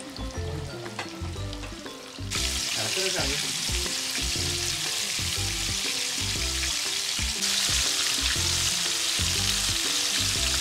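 Coated chicken pieces deep-frying in hot sunflower oil: a loud sizzle starts suddenly about two seconds in as the pieces go into the oil, and gets louder again about seven seconds in.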